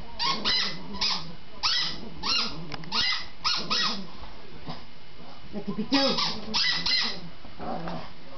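Dogs playing with squeaky toys: a string of short, high squeaks in quick runs, with a quieter gap of about two seconds in the middle.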